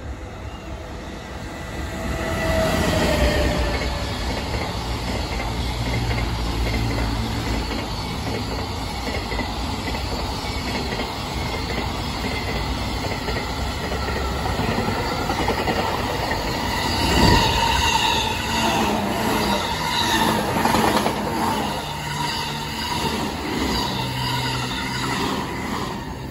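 Long container freight train hauled by an EF210 electric locomotive passing at speed. The rumble swells about two seconds in as the locomotive arrives and then holds steady as the wagons run by. In the second half a rhythmic clatter of wheels over rail joints and a thin wheel squeal come through.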